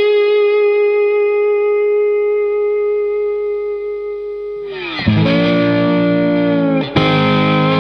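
Background music: a guitar holds one long note that slowly fades, then new chords are struck about five seconds in and again about seven seconds in.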